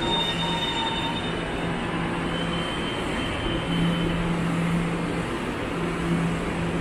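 Train running on rails: a steady rumble with a low hum, and thin high wheel squeal during the first second or so.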